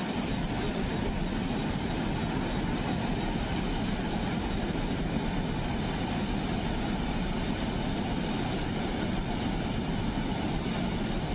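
Water rushing out through the open spillway gates of a large dam in a steady, even roar heavy in low rumble: a flood release with fifteen gates open.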